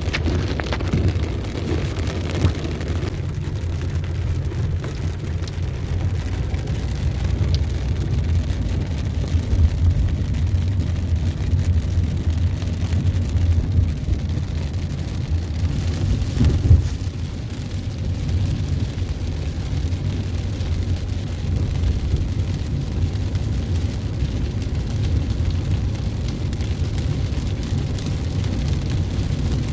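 A car driving in the rain: a steady low rumble of engine and road noise, with a fainter hiss of rain.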